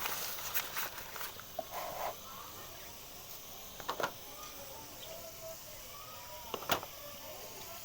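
Potato chips frying in hot oil: a steady sizzle with sharp pops of spitting oil, the loudest near the end.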